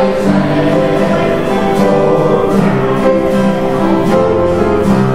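Several voices singing a gospel worship song together, with long held notes over acoustic guitar accompaniment.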